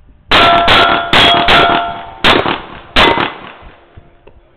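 Six quick pistol shots at steel targets, about a second in to three seconds in, with the steel plates ringing after the first several hits.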